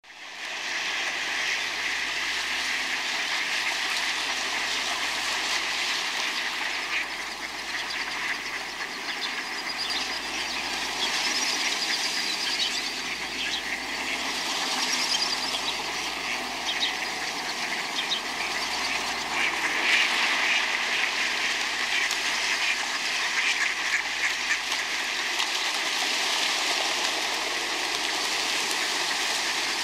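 A flock of ducks quacking and splashing in water, a steady mix of calls and splashing throughout.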